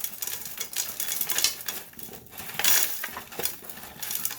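Ice cubes clattering and clinking against the plastic ice bin and auger of a frozen-up refrigerator ice maker, in a rapid, irregular run of clicks.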